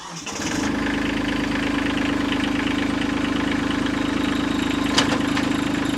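Kubota LX2610 compact tractor's three-cylinder diesel engine builds up over the first half second, then idles steadily, with one sharp click about five seconds in.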